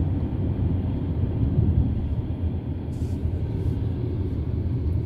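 Steady low rumble of a moving car, heard from inside the cabin: road and engine noise as the car rounds a roundabout.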